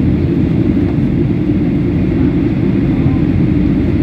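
Steady low rumble of engine and airflow noise inside a Boeing 737 airliner's cabin in flight.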